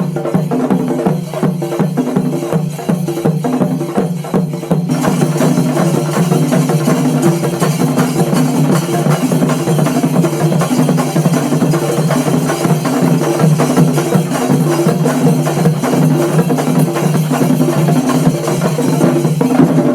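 Music: a busy drum and wood-block rhythm under a repeating melody of short pitched notes, which gets fuller about five seconds in.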